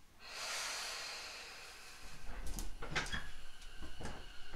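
Compressed-air hiss from a Tobu 10080 series electric train's pneumatic equipment, swelling about a quarter of a second in and fading over a second. From about halfway a low rumble sets in, with a quick run of clunks and knocks.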